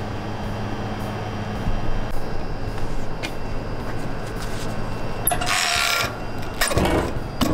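Stainless-steel V-type powder blender with a steady motor hum for the first couple of seconds. Then comes metal handling noise from its charging port and cover: a loud scrape about five seconds in and a thump near the end.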